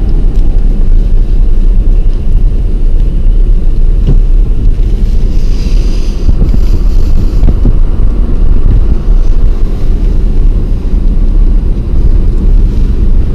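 Steady low rumble of engine and tyre noise heard from inside a moving vehicle's cabin, with a soft hiss rising briefly around the middle.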